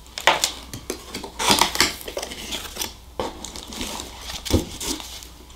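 Hands rummaging in an opened cardboard product box, rustling packaging and paper with scattered clicks and knocks, and a dull thump near the end.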